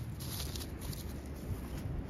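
Footsteps on dry grass: soft, uneven scuffs and rustles as a person walks up carrying an aluminium ladder.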